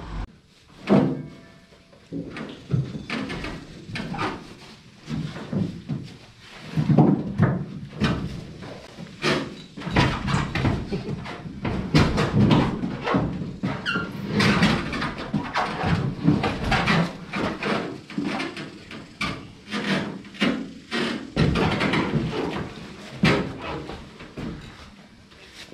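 Irregular knocks, thumps and scraping as men move about in a steel pickup bed and wrestle a plastic-wrapped K20 engine out over the tailgate. The engine block clunks against the bed.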